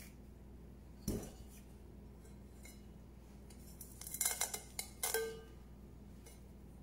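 Stainless steel perforated steamer basket clinking against its pot as it is lifted out and set back: a single knock about a second in, then a quick clatter of metal clinks around four seconds and a last clink that rings briefly.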